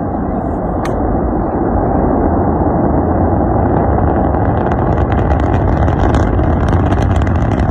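SpaceX Starship prototype's rocket engines during liftoff and climb: a loud, steady, deep rumble that grows a little louder, with crackling coming in from about four seconds on.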